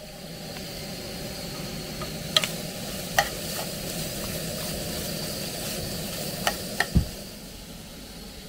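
Chicken gyros sizzling in a frying pan, a steady hiss with a few sharp clicks scattered through it.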